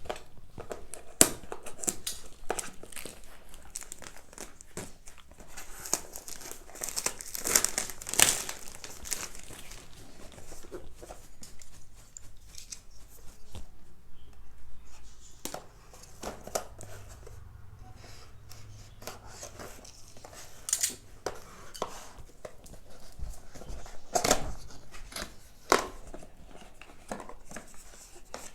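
Packaging being torn open and handled: paper and plastic tearing and crinkling, with sharp clicks and rustles, heaviest about six to nine seconds in and in short bursts later.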